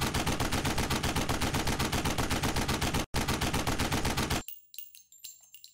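Automatic gunfire sound effect: rapid, evenly spaced shots in a long burst of about three seconds, a brief break, then a shorter burst of about a second and a half, followed by a few faint clinks and high ringing.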